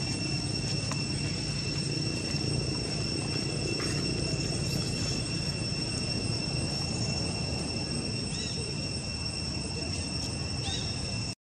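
Steady outdoor ambience: a continuous high insect drone over a low rumble, with a couple of faint short chirps near the end.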